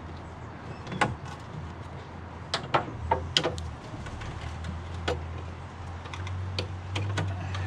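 Scattered sharp clicks and taps, about nine in all, as the stuck remains of a failed rivet are wiggled and worked loose from the bonnet catch mounting on a car's front slam panel, over a low steady rumble.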